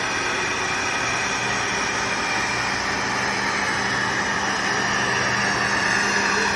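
Narrow-gauge diesel railcar running slowly toward the listener, its engine a steady hum that grows a little louder as it draws near.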